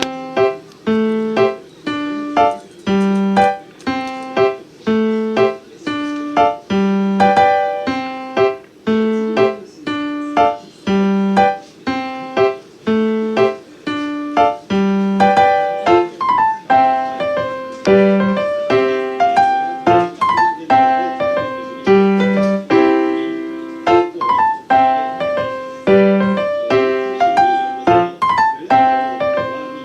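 Background piano music: a steady stream of struck notes over a repeating bass line, about two notes a second.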